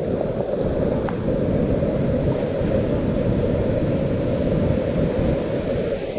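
Steady rush of the sea, heavily buffeted by wind on the microphone.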